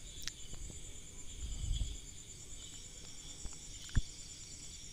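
Faint, steady trilling of crickets in the background. A soft low thump about one and a half seconds in, and a single sharp click about four seconds in as a steel spoon of salt touches the steel mixer jar.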